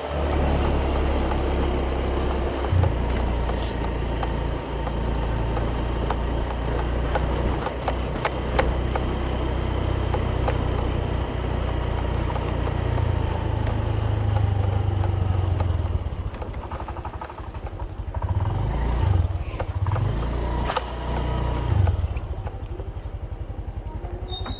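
A motor vehicle running, with a heavy, wavering low rumble like wind on the microphone. In the last several seconds the sound drops and turns unsteady.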